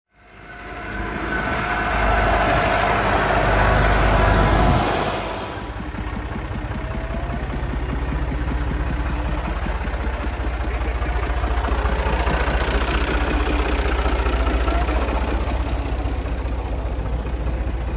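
Tractor's diesel engine running steadily at low speed. It is louder for the first five seconds, then drops a little and runs on evenly.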